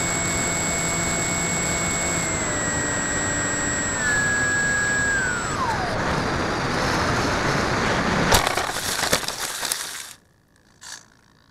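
Flying wing's electric motor and propeller whine in the onboard camera, the pitch stepping down and then sliding away as the motor winds down after the radio control link is lost, leaving wind rush. About eight seconds in comes a sharp impact, the loudest sound, followed by about two seconds of crackling and scraping as the wing hits and skids across dry grass, then it goes quiet.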